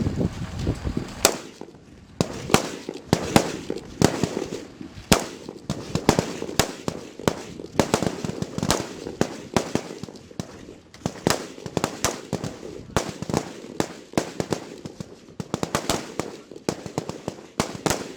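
Rifle fire from many shooters on a firing line: sharp shots at irregular intervals, several a second, some louder and nearer than others.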